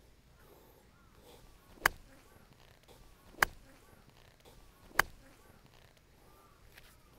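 A golf wedge striking a ball off turf: a sharp, crisp click, heard three times about a second and a half apart.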